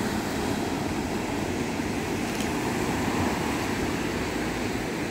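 Ocean surf breaking and washing over a rocky shore, a steady roar of waves.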